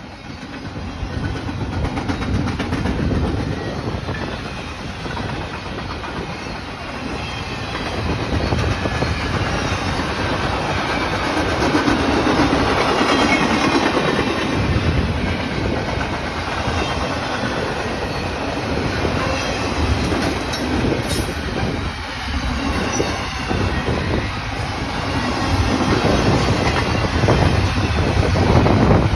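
CSX freight train rolling past, its cars' wheels clattering over the rail joints with a steady rumble.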